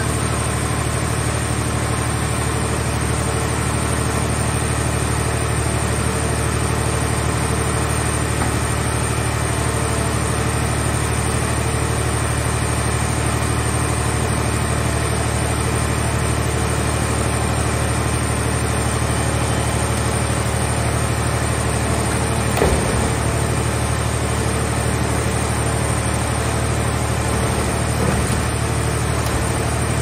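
Scrap car baler's hydraulic power unit running with a steady low drone while the press crushes a car body. Two short creaks come through, one about two-thirds of the way in and another near the end.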